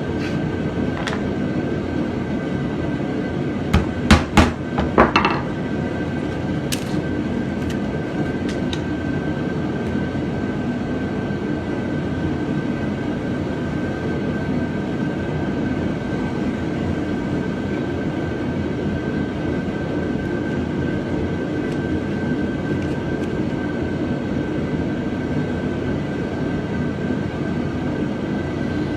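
A steady mechanical drone with a constant high thin whine, like a machine running, broken about four to five seconds in by a quick cluster of loud sharp knocks and then a few lighter clicks.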